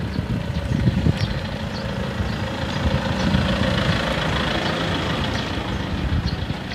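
Wind buffeting the microphone and road rumble from a bicycle rolling along a paved street, an uneven low rumble with a few light ticks and rattles.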